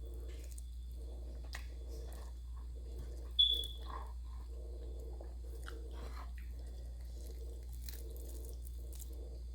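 Close-up chewing and crunching of crisp fried food: steady, rhythmic mouth sounds about twice a second, with a few sharp crunches. A short, high clink rings out about three and a half seconds in. A steady low hum runs underneath.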